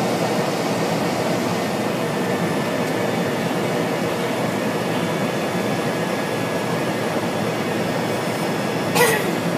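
Cessna 208B Grand Caravan's single turboprop engine and propeller running steadily, heard from inside the cockpit during the landing. A short sharp click about nine seconds in.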